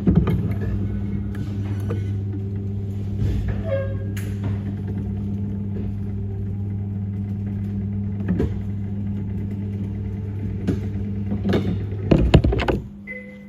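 A loud, steady machine hum that cuts off suddenly about twelve seconds in, with scattered knocks and bumps over it.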